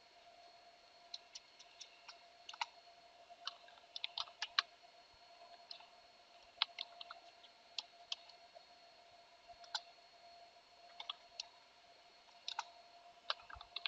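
Sparse, irregular computer keyboard keystroke clicks, a few at a time with pauses between, as a configuration file is edited, over a faint steady electrical hum.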